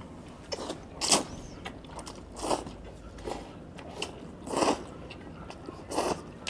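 Person eating noodles, with about six short slurps at irregular intervals of roughly a second.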